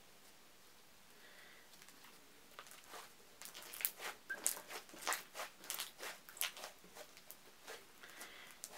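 Thick, glossy slime being squished and folded by hand, giving irregular wet clicks and pops a few times a second, starting about three seconds in.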